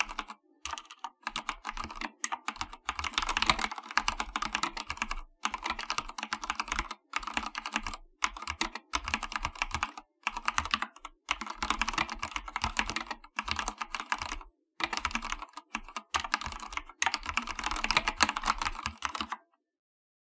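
Typing on an Akko 3108 V2 full-size mechanical keyboard with Cherry switches: quick runs of key clicks and clacks in bursts of a few seconds, broken by short pauses, stopping shortly before the end.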